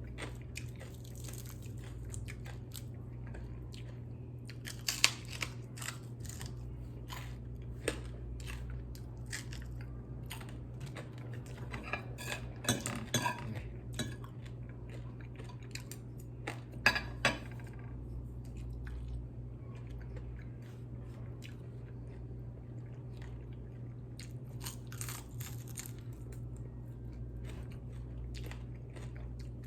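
Close-up chewing and crunching of crispy refried chicken feet, in scattered bursts with pauses between, over a steady low hum.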